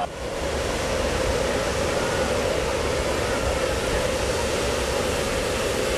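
Hot air balloon propane burners firing in a steady, loud roar that cuts in suddenly at the start and holds without a break.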